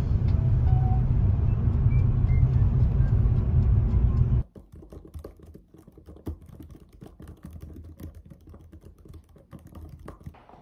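Car cabin road noise, a steady low rumble from driving, which cuts off about four seconds in. Then quick, irregular clicking of typing on a keyboard.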